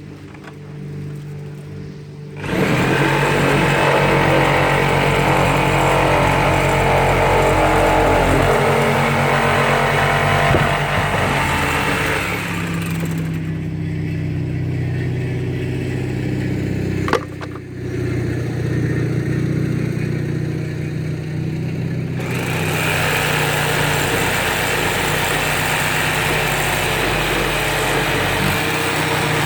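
A motor running steadily, joined twice by a long stretch of louder, noisy whirring, with one sharp click in between.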